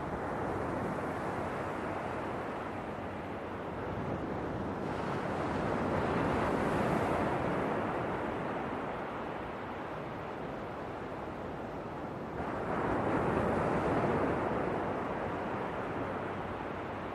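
Ocean waves washing in, with two swells that build and fade about seven seconds apart over a steady surf wash.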